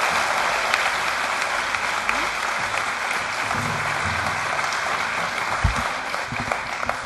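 Audience applauding steadily in a hall, the clapping tapering off near the end.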